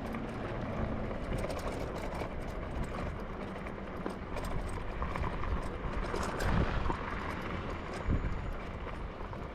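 Electric dirt bikes being ridden over rough ground: tyres on dirt with a steady rush and many small rattles and knocks, and a couple of heavier thumps about six and a half and eight seconds in.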